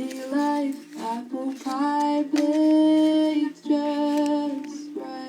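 Background song: a woman singing over guitar, with a long held note in the middle.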